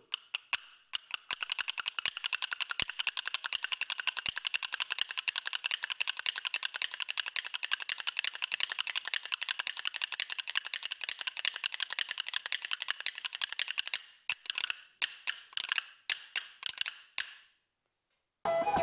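Hand-held percussion clappers played solo in very fast, dense clicking rolls. About fourteen seconds in, the rolls break into short separate flurries, then stop. Just before the end, music starts.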